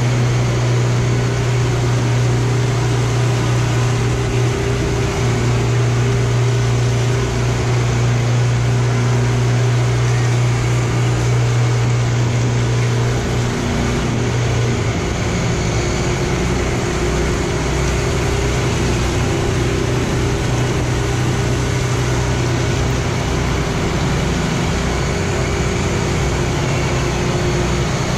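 Walk-behind concrete power trowel running steadily, its petrol engine turning the steel blades over a fresh concrete slab. The engine note shifts a little about halfway through.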